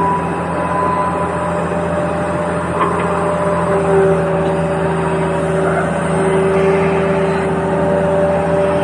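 Toy RC vehicle running: a steady electric hum with several held whining tones and a little clatter.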